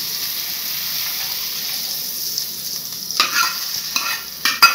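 Hot ghee tempering with spices sizzling steadily in a small aluminium pan. About three seconds in, a metal spoon scrapes and taps the pan as the tadka is poured out, with sharp clicks and one louder knock near the end.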